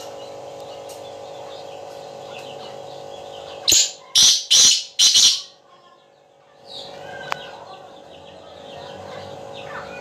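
Black francolin (kala teetar) calling: four loud, harsh notes in quick succession about four seconds in, over a steady background drone with faint chirping.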